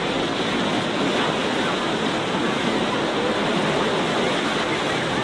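Mediterranean waves washing steadily onto a sandy beach, with faint, distant voices of bathers mixed in.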